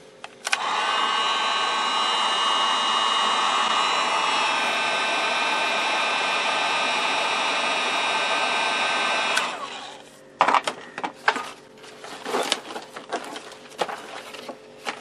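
Wagner heat gun switched on about half a second in, its fan blowing steadily with a whine. It is switched off after about nine seconds and spins down. Several sharp clicks and knocks follow.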